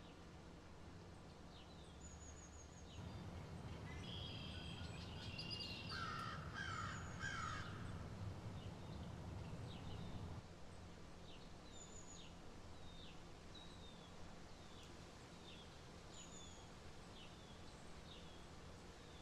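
Faint bird calls. A cluster of louder calls comes a few seconds in, over a wash of background noise that fades about ten seconds in. After that, short chirps repeat every half second or so.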